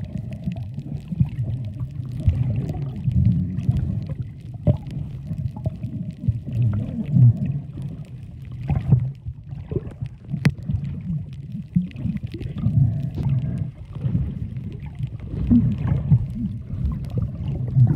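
Muffled underwater sound picked up by a submerged camera: a low rumble of moving water that swells and fades, with a few sharp clicks.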